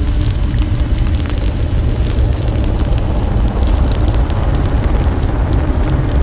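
Steady deep rumble with many scattered crackles and pops, a fire-like crackling texture.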